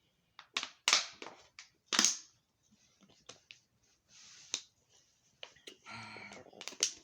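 Close-miked eating sounds from chicken and fries: sharp mouth smacks and crunching clicks. Two loud ones come about one and two seconds in, then softer ticks and a short hiss.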